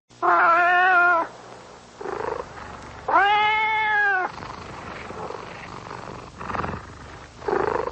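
Domestic cat meowing: two long, drawn-out meows about three seconds apart, with shorter, quieter mews between them and near the end.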